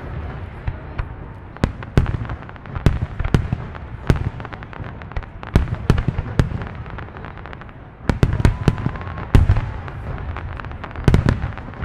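Fireworks display: a string of sharp bangs and crackling shell bursts at uneven spacing, over a continuous low rumble, with a dense volley of reports from about eight seconds in.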